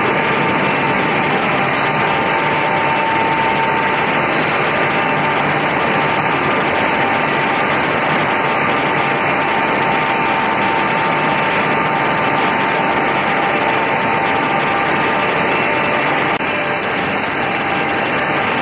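Homag KL 26 Optimat double-sided edgebanding machine running: a steady mechanical whir and hum with a constant high whine, a little quieter near the end.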